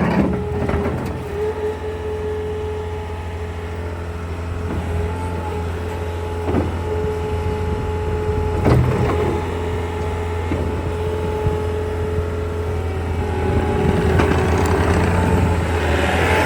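Bobcat T62 loader's diesel engine running steadily with a constant whine, a couple of knocks partway through, and getting louder in the last few seconds.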